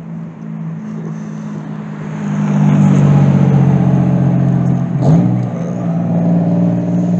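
A motor vehicle's engine running, growing louder about two seconds in, with a brief dip and rise in pitch around five seconds.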